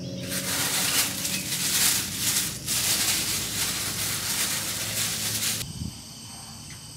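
Plastic bag crinkling and rustling close up as it is handled and stuffed into a backpack. It stops abruptly near the end, leaving steady insect chirring.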